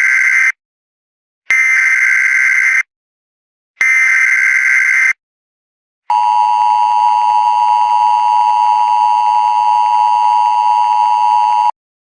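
Emergency Alert System SAME header: three identical buzzing data bursts about a second and a half long, the first already under way, followed by the EAS attention signal, a steady electronic tone held for about five and a half seconds that cuts off sharply. This is the opening of an EAS required weekly test.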